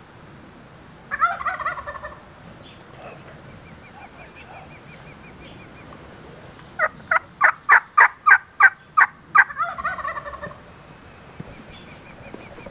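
Merriam's wild turkey gobbler gobbling about a second in. Later comes a run of about nine sharp yelps, roughly three a second, and a second gobble cuts in over the last of them.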